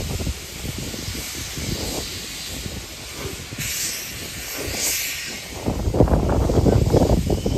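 Queensland Railways C17-class steam locomotive 974 hauling its train, heard from a passenger coach: a steady hiss of steam with two brief sharper hisses in the middle, and a louder rough low rumble from about six seconds in.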